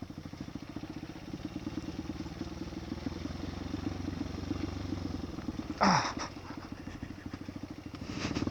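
Motorcycle with a ported engine running at low, steady revs while riding slowly, its firing pulses even throughout. A short sharp noise cuts in about six seconds in.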